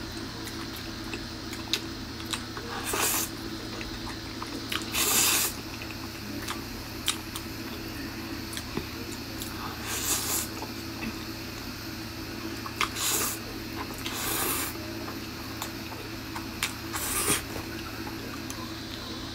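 Spicy noodles being slurped into the mouth in about six wet slurps a few seconds apart, with small smacking clicks between them, over a steady low hum.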